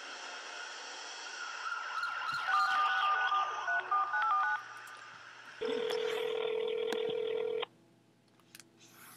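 Touch-tone phone keypad dialing a number: a quick run of short two-tone beeps starting a couple of seconds in. It is followed by a single ringback tone lasting about two seconds, the line ringing at the other end.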